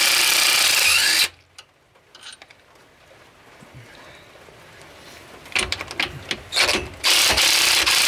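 Cordless impact wrench hammering in two bursts of about a second each, at the start and about seven seconds in, loosening the bearing cap bolts of a Chrysler 9.25 rear differential. Light clinks of the socket and metal parts come between the bursts.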